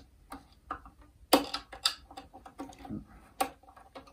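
Wooden tuning pegs of a violin being turned by hand to slacken the strings, giving a series of irregular sharp clicks.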